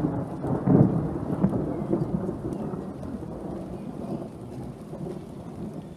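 A roll of thunder, loudest about a second in and then rumbling away slowly.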